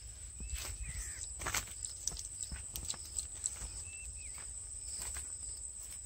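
Outdoor field ambience: a steady high-pitched insect drone with a few short chirping calls over a low wind rumble, and scattered rustling and footsteps in dry grass.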